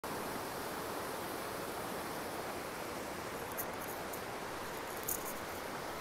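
Small mountain stream rushing over rocky cascades: a steady, even hiss of falling water. A few faint crackles come through midway and near the end.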